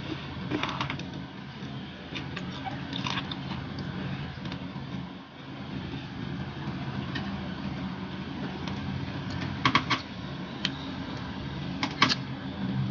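Eating sounds of someone eating with her fingers: scattered chewing and lip smacks, with a quick cluster of three sharp smacks late on and one more near the end, over a steady low hum.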